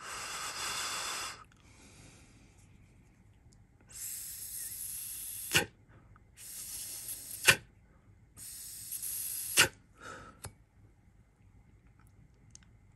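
Dry puffs drawn through a freshly filled Hellvape Fat Rabbit RTA (rebuildable tank atomizer) without firing the coil, to relieve internal pressure so the tank doesn't leak. There are four airy hisses of a second or so each, and the last three end in a sharp pop.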